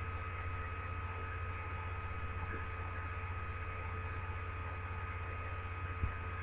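Steady electrical mains hum with light hiss and a few faint high steady tones; one faint click near the end.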